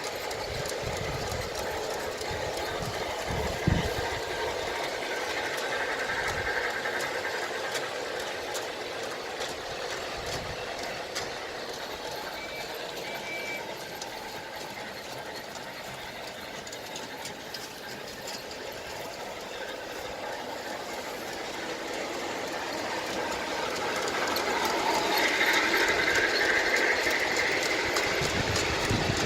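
Bachmann Thomas and Percy large-scale model locomotives with DCC sound decoders running along the track pulling cars: steady mechanical running and rail noise from the train, with one sharp knock about four seconds in. It grows louder over the last few seconds.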